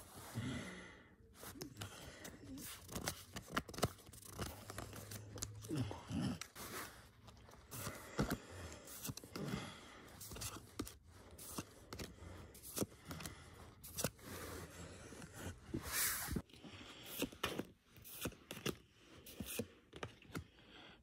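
Pokémon trading cards being flipped through by hand, each card slid off the stack and tucked behind the others: an irregular run of sharp card snaps and scraping rustles.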